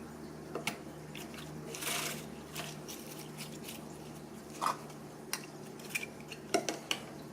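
Slime and its small plastic tub being handled: faint scattered clicks and taps, with a soft squishing rustle about two seconds in.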